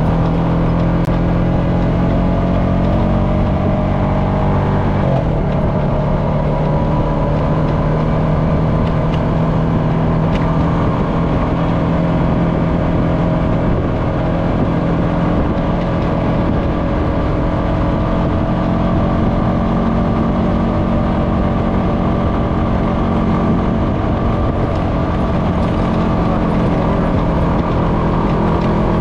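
Honda FourTrax Foreman ATV's single-cylinder four-stroke engine running steadily under way on a dirt road. The engine note shifts about five seconds in, then holds even.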